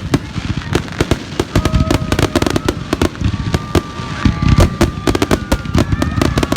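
Fireworks display going off in a dense, rapid run of bangs and crackles, many per second, with whistling tones coming in about a second and a half in.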